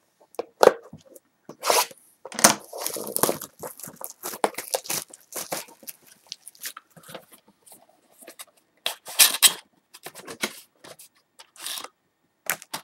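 Wrapping being torn off and a cardboard box of trading-card packs being opened: irregular tearing, crinkling and scraping, loudest in two spells, about two seconds in and about nine seconds in.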